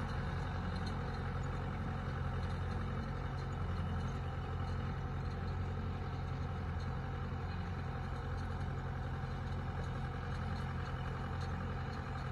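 Tractor engine running steadily, a low even drone with no change in speed or load.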